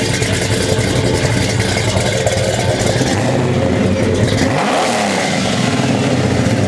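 A custom muscle car's engine running loud and rough through its exhaust, then revved up sharply once about four and a half seconds in.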